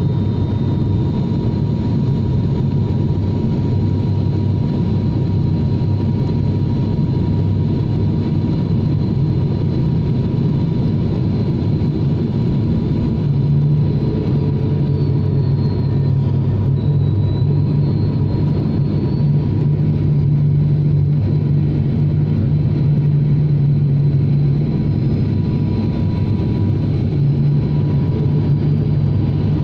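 Cabin drone of a turboprop airliner in flight: a steady low hum from the engines and propellers with a thin, constant high whine. About halfway through, a low tone in the hum grows stronger and then holds.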